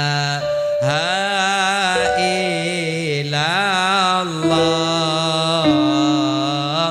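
A man singing sholawat, an Islamic devotional song, in long held notes joined by ornamented slides in pitch.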